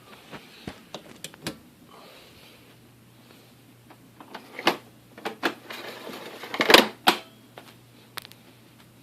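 Scattered sharp clicks and knocks of hard objects being handled. There is a faster, louder run of clattering a little past halfway through, over a faint steady hum.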